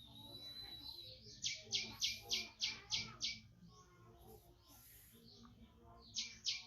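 A run of about seven short, high-pitched chirps at roughly four a second, then two more near the end.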